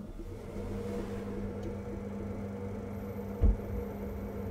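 Worcester Bosch Greenstar 4000 combi boiler starting up about half a second in, its fan running with a steady hum, as it fires to heat water for a tap opened elsewhere in the house. A single low thump about three and a half seconds in.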